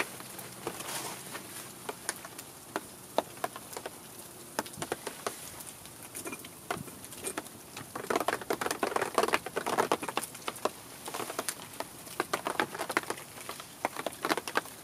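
Wood campfire crackling, with irregular sharp pops that come thick and fast about eight seconds in and again near the end.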